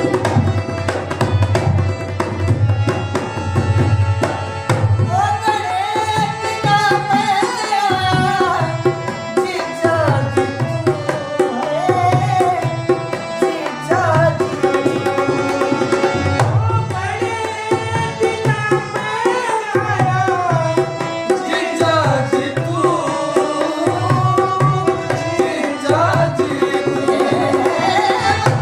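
Haryanvi ragni folk song in practice: a hand drum keeps a steady rhythm under a sustained drone. From about five seconds in, a voice sings long, gliding, ornamented melodic lines.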